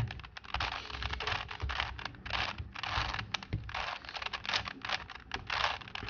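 A 4x4 Rubik's Cube being turned by hand through a sequence of moves: its plastic layers clicking and scraping in a quick, irregular run of clicks.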